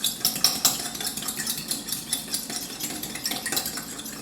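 Fork whisking a raw egg in a mug, the metal tines clicking rapidly against the sides, about five or six clicks a second.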